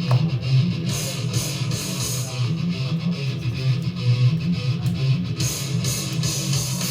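Metal music driven by electric guitar, playing continuously with a steady pulsing rhythm.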